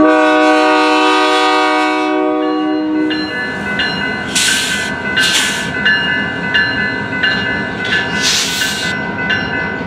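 Diesel locomotive air horn sounding one long chord blast for about three seconds, then the train's continued rolling noise with faint wheel clatter and a few short hissing bursts.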